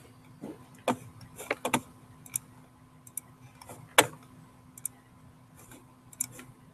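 Scattered sharp clicks and light knocks of a computer mouse in use, some in quick pairs, the loudest about a second in and about four seconds in, over a faint steady hum.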